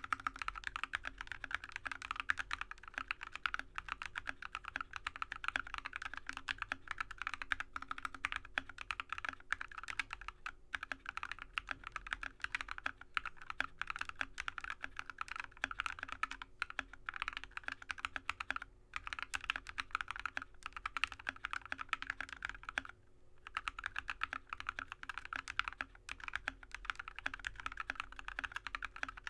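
Continuous typing on a Drop ALT mechanical keyboard with Alpaca linear switches, lubed with Tribosys 3203 and filmed, under Drop MT3 keycaps: a dense stream of rapid keystrokes, with a short pause about two-thirds of the way through.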